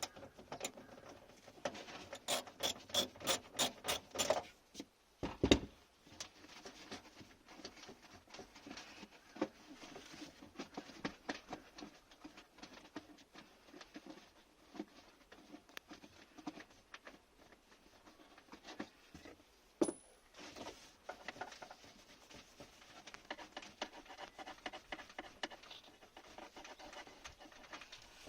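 Hands working on a car's brake light assembly: plastic parts rubbing and scratching. A quick run of about eight clicks comes early, a single louder knock follows, and another sharp click comes later.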